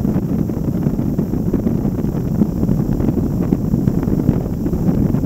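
Loud, steady wind rumble buffeting the microphone of a camera slung under a flying multirotor drone, from the rotor downwash and the air of the flight.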